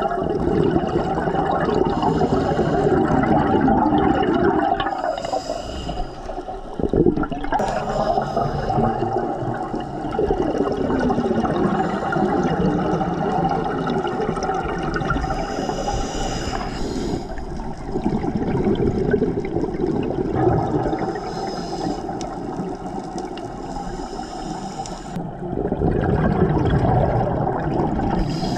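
Scuba diver breathing through a regulator underwater. A rush of bubbles swells and fades every several seconds, with short hissing inhalations in between.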